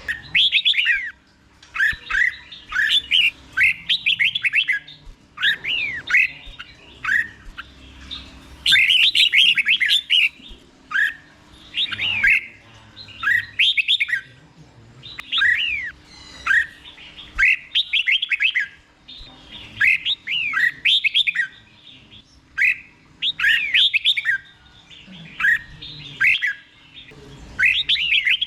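Red-whiskered bulbul singing in short, clear whistled phrases. Each phrase is a quick run of rising and falling notes, and the phrases repeat every second or two with brief pauses between them.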